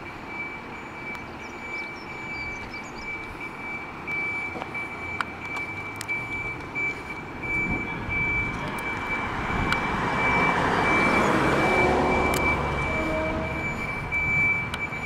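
Scania P280 fire engine's five-cylinder diesel engine running as the truck pulls away, getting louder about two-thirds of the way through and easing off near the end. A steady high-pitched tone sounds alongside, with a few sharp clicks.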